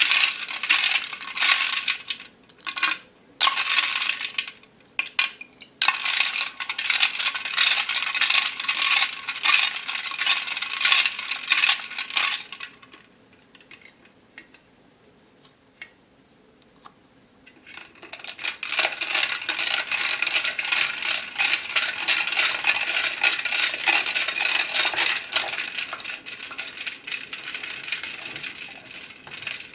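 Plastic pearl beads clicking and rattling together against a container in a fast, dense patter of small hard clicks. It breaks off for about five seconds in the middle with only a few stray clicks, then starts again.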